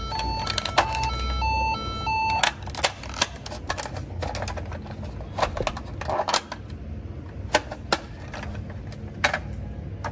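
Plastic toy ambulance: an electronic two-tone siren alternating high and low for about the first two seconds, then a series of sharp plastic clicks and snaps as its hinged doors are opened and closed.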